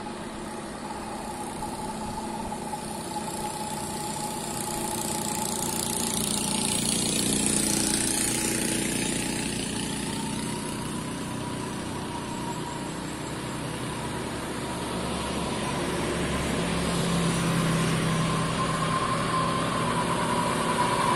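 Road traffic passing on a two-lane road. About eight seconds in, a vehicle goes by close with a swell of tyre and wind noise. Then a heavy truck's diesel engine grows steadily louder as the truck approaches.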